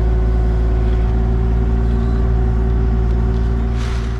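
Excavator's diesel engine running steadily at a constant pitch while digging.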